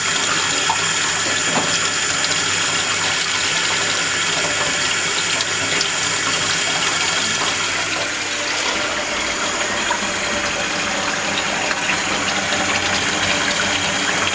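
Kitchen tap running steadily, its stream splashing over a hand-held giant African land snail and into a stainless steel sink.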